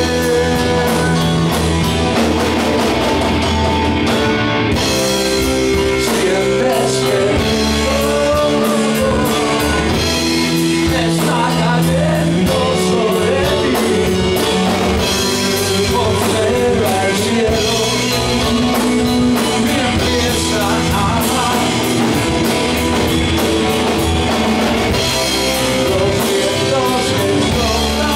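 Live progressive rock band playing loudly: Yamaha Motif synthesizer keyboard, electric guitar, bass and drum kit, with a male lead vocal over the band.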